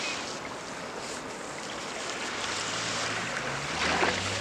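Surf washing on a coarse sand and pebble beach, a steady rushing noise. A low steady hum joins about halfway through, and a short burst of crackling comes near the end.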